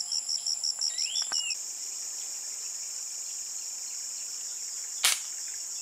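Insects buzzing in a high drone, pulsing rapidly at first and then steady from about a second and a half in, with a short rising bird call about a second in. Near the end a single sharp crack of a scoped air rifle being fired.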